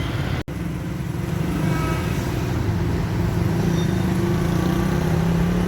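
An engine running steadily with a low hum, cut by a brief gap about half a second in.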